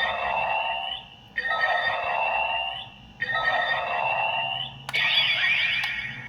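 Ultraman Blazar DX transformation device playing a looping electronic sound effect that repeats about every one and a half seconds, each pass ending in a rising tone.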